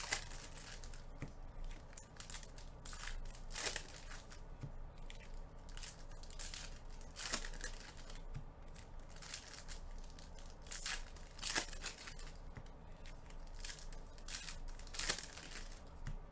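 Foil trading-card packs being torn open and crinkled by hand, with a sharp rip every few seconds.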